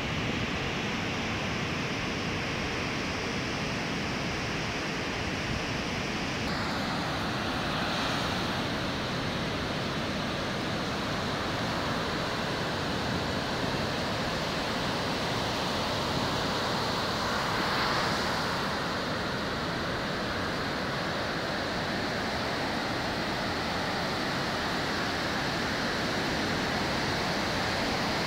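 Ocean surf breaking on the shore: a steady rush of waves, swelling louder about 8 and 18 seconds in, with some wind on the microphone.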